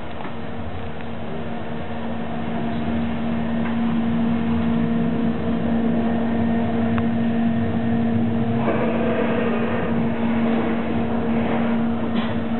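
Passenger train running, heard from inside the carriage: a steady rumble with a droning hum that grows louder over the first few seconds as the train gathers speed, turning into a rougher rush of rail noise about nine seconds in.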